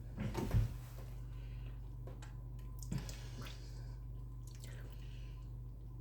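Close-up wet eating sounds of meat aspic (kholodets) being chewed: squishy mouth noises and small smacks, most of them in the first second, a few softer ones later, over a steady low electrical hum.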